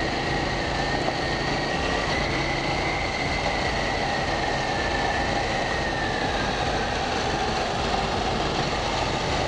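KTM 790 Duke's parallel-twin engine running at a steady pace under way, with wind and road noise.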